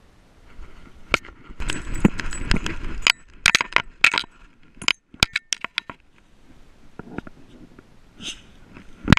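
Close handling noise on a GoPro as a dog noses at it in the grass: rustling and scraping with a quick run of sharp clicks and clinks, then a single loud knock near the end.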